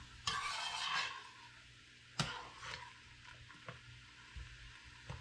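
Metal spoon stirring coconut cream into a pot of boiling water: a short rush of stirring noise near the start, then a few light knocks of the spoon against the metal pot.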